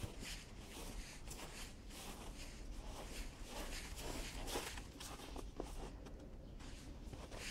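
Footsteps crunching in snow: soft, irregular crunches, several a second.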